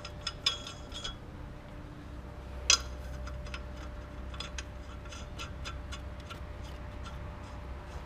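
Steel wheel nuts being turned by hand onto a tractor's wheel studs, making light, irregular metallic ticks and clinks, with one louder clink about three seconds in. A steady low hum runs underneath.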